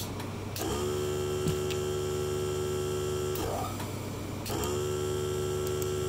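Small electric air compressor under a workbench, switched from a remote rocker switch: the motor hums steadily for about three seconds, stops, and a second later is switched on and hums again.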